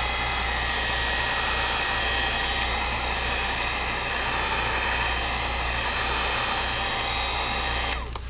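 Heat gun blowing hot air steadily with a low hum, warming one corner of a cracked iPad screen to soften the adhesive under the glass. It stops near the end.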